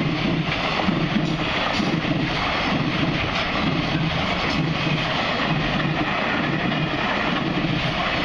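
Freight train of container wagons rolling past close by: a loud, steady rumble of steel wheels on rail, with a low rhythmic beat running through it.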